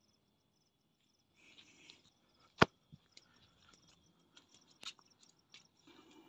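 Faint steady chirping of crickets, with a sharp click about two and a half seconds in, a smaller click near five seconds, and scattered faint ticks.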